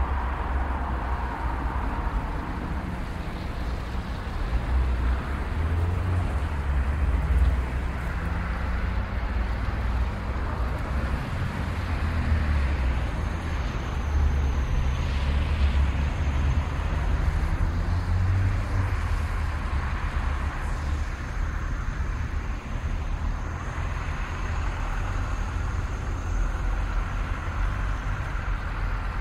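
City street traffic: cars and heavier vehicles such as buses passing in a continuous low engine rumble with road noise, pitches rising and falling as they go by. A faint high steady whine sounds through the middle of the stretch.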